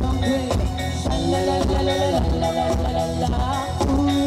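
Loud music with drums and a melody line, playing without a break.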